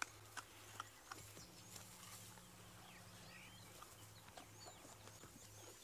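Near silence: faint high chirps and short pitch glides over a low steady hum, with a few soft clicks.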